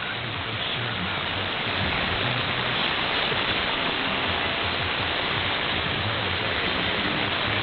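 Steady hiss of shortwave band noise from a software-defined radio receiver tuned to 3955 kHz in synchronous AM, with the rock music station's signal faded down into the static.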